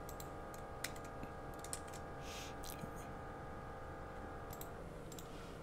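Scattered light clicks of a computer mouse and keyboard being worked at a desk, over a steady background hum that drops away near the end.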